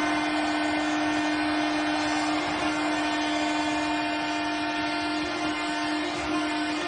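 Arena goal horn blowing one long, steady blast over a cheering crowd, signalling a home-team goal.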